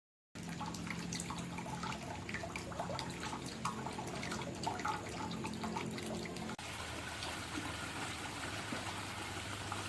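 Water trickling and splashing, with many small droplet-like plops over a low steady hum. About six and a half seconds in it cuts to a smoother, even rush of flowing water.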